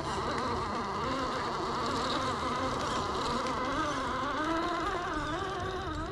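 Electric motor and geared drivetrain of an Axial SCX10 III RC crawler whining under load as it climbs rock, the pitch wavering up and down with the throttle.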